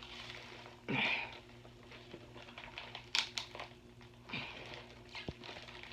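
Packaging being handled and pulled open: scattered rustling and crinkling with a few sharp clicks, loudest about a second in and again around three and four seconds.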